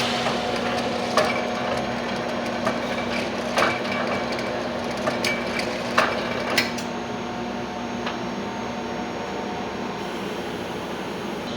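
Semi-automatic ROPP bottle-capping machine running with a steady hum, with irregular sharp clinks and knocks over the first seven seconds or so.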